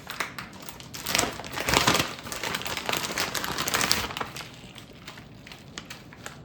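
Plastic bag of shredded cheese crinkling and rustling in irregular bursts as it is shaken out and emptied, easing off after about four and a half seconds.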